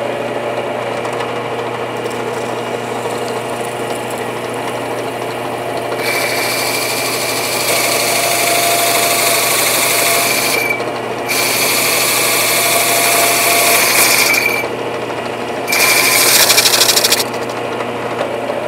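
Drill press running with a Porter-Cable hole saw cutting into wood from about six seconds in, a harsh cutting noise with a high squeal. The cutting breaks off twice briefly as the saw is lifted clear, resumes, and ends a little over a second after the second break, leaving the drill press motor running on.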